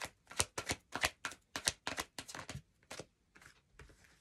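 A deck of oracle cards being shuffled by hand: a quick run of sharp card snaps and flicks for about three seconds, then softer, sparser card sounds.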